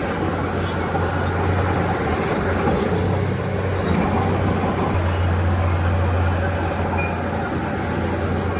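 Komatsu D31P bulldozer's diesel engine running steadily, with scattered short high squeaks.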